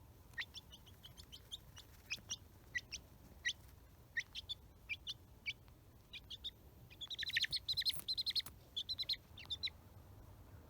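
Domestic chicken chick peeping: short, high chirps at irregular intervals, with a quick run of louder peeps about seven seconds in.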